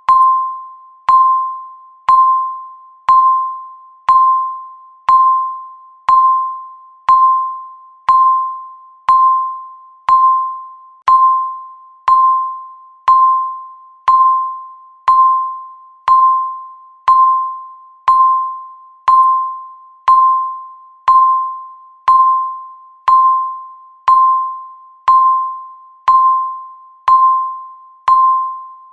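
Countdown timer beeping once a second: a single clear electronic ding, each with a sharp start that fades away before the next.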